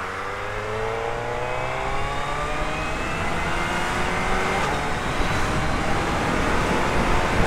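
Stock 2022 Suzuki Hayabusa's inline-four engine pulling in gear, its pitch rising steadily as the bike gathers speed. Under it is the hiss of tyres on a wet road and wind rush.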